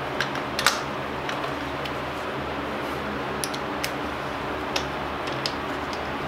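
Irregular sharp metallic clicks and taps from a hand tool and small parts being handled in a car's engine bay, the loudest under a second in, over a steady background hum.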